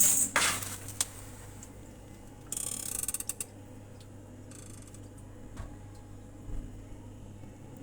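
Short bursts of rapid mechanical clicking from a small mechanism, one about two and a half seconds in and a fainter one about two seconds later, over a steady low hum.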